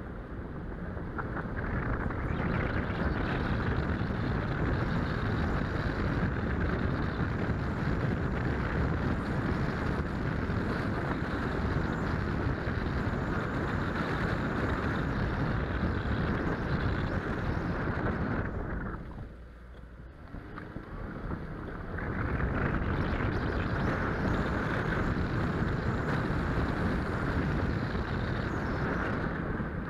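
Steady rush of wind buffeting a hood-mounted action camera, mixed with the road and engine noise of the car it rides on. The noise dies down for a few seconds about two-thirds of the way through, then returns.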